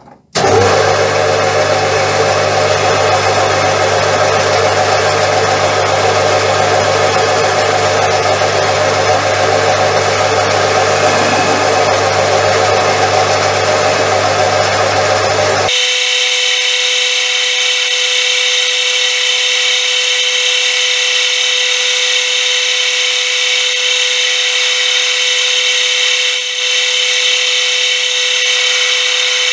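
Metal lathe switched on about half a second in and running steadily, chuck spinning, with a steady mechanical whine. About halfway through the low hum cuts out abruptly, leaving a steady mid tone and a higher whine.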